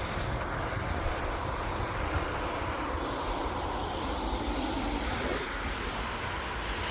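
Steady low vehicle rumble with a hiss over it, holding at an even level without sharp events.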